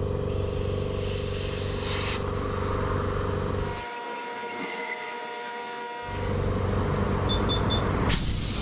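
Air hissing at a motorcycle tyre valve in two bursts as the air machine's chuck is pressed on, letting air escape before a reading comes. A steady motor hum runs underneath and stops for about two seconds midway, and the machine beeps three times shortly before the second hiss.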